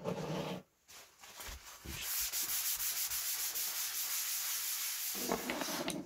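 Paper tissue rubbed and wiped across a plastic cutting mat. The rubbing is steady and scratchy from about two seconds in until just before the end.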